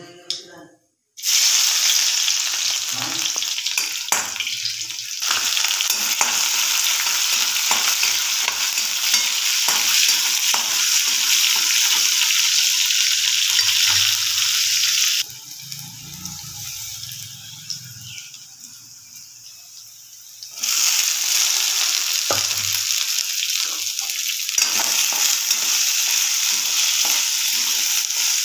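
Hot oil sizzling loudly in a steel kadhai as spice seeds, then garlic and green chillies, fry in it, with a spatula scraping and tapping the pan. The sizzle starts suddenly about a second in, falls away for about five seconds in the middle, and comes back just as strong.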